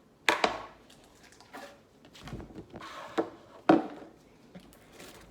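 Hard slime being pressed and stretched by hand, giving a few sharp clicks and pops, the loudest one near the start and another toward the end.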